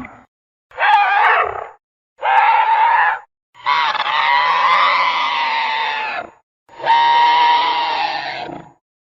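Kaiju roar sound effects for Keizer Ghidorah: four separate shrieking, screeching calls with short silences between them, the third the longest at nearly three seconds.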